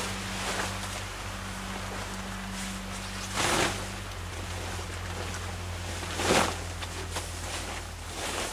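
Tent rain fly fabric swishing as it is swung and flung over the tent, with two loud swooshes about three and a half and six seconds in. A steady low hum runs underneath.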